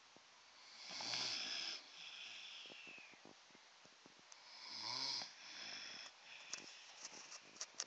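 Sleeping dogs snoring: two snores about four seconds apart, each a breath in followed by a softer breath out.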